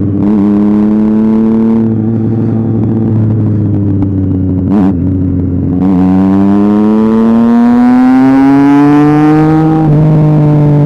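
Triumph Street Triple 675's three-cylinder engine running with its exhaust removed, heard from the rider's seat. The revs hold fairly steady at first, there is a sharp crack about five seconds in, then the revs climb steadily for about four seconds under acceleration before dropping with a gear change near the end.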